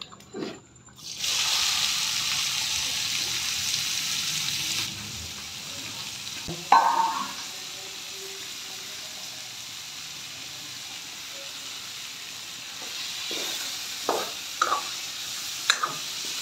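Chopped onions dropped into hot mustard oil in a kadai: a sudden loud sizzle about a second in that settles after a few seconds into a quieter steady sizzle. A sharp metal clank comes around the middle and a few sharp knocks near the end.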